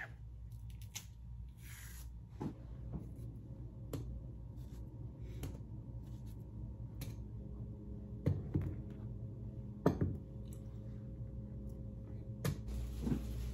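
Banana being sliced with a kitchen knife over a cereal bowl: scattered soft clicks and taps, a few sharper knocks about eight and ten seconds in, over a steady low hum.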